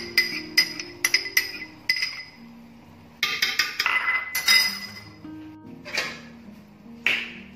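A glass cup is tapped repeatedly against the rim of an aluminium cooking pot to knock out yogurt, giving sharp ringing clinks about two or three a second. A quicker flurry of clinks follows midway, then two single knocks near the end. Soft background music plays underneath.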